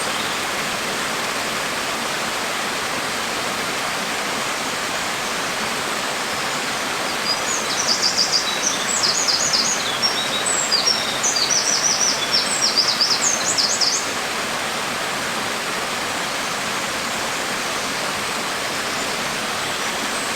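Steady hiss of falling rain, with a bird singing rapid high chirping trills for several seconds in the middle.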